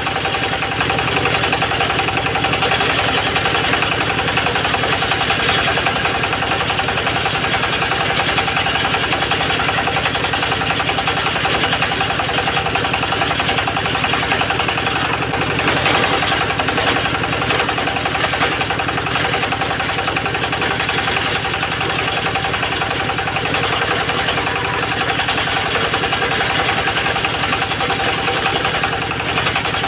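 A home-built circular-saw mill (serkel) running steadily under engine power, its disc blade sawing teak. The sound is a continuous loud mechanical drone with a steady whine, swelling slightly about halfway through.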